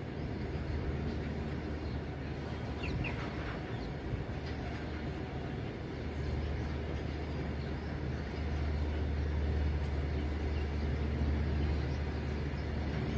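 Freight train of covered goods wagons rolling past: a steady low rumble of wheels running on the rails.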